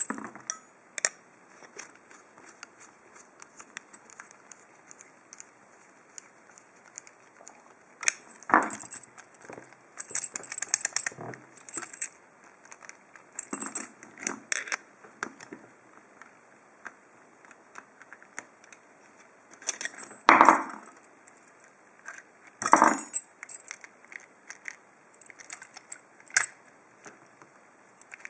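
Small metal padlock parts being handled on a hard surface: scattered clicks, clinks and short rattles, with two louder clatters in the last third. These are the parts of a Lockwood padlock with its core removed, including loose ball bearings, being fitted back together.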